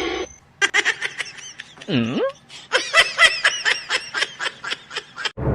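High-pitched laughter in two runs of quick, repeated bursts, with a short swooping vocal sound that dips low and rises again between them.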